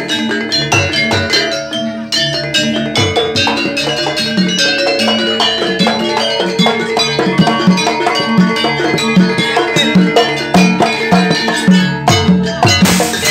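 Live jaranan music: kendang hand drums played in fast, dense strokes over tuned metal percussion with a steady repeating beat.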